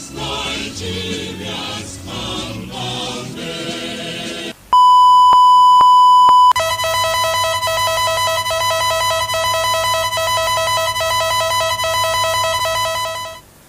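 Choral music for about four and a half seconds, then cut off by a loud steady beep lasting about two seconds, followed by a rapidly pulsing multi-pitched alert tone that runs for about seven seconds: the attention tones of an emergency alert broadcast.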